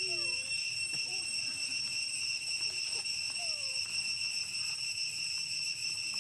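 A steady high-pitched insect drone running unchanged throughout. A couple of short, faint falling cries come at the start and again about three and a half seconds in.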